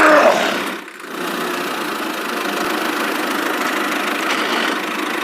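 Small motor of a DIY mini tractor running steadily with an even hum. It dips briefly about a second in, then runs on at a constant level.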